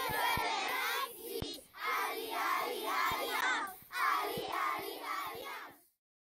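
A group of children shouting a cheer together in three bursts, their voices rising and falling in a chant-like rhythm.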